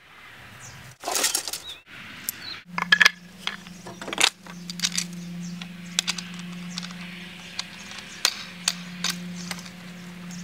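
A takedown bow being assembled: a ski limb fitted and bolted onto a wooden riser, giving a series of sharp clicks, knocks and small metallic clinks, the loudest about a second in and again around three to four seconds in. A steady low hum runs underneath from about three seconds in.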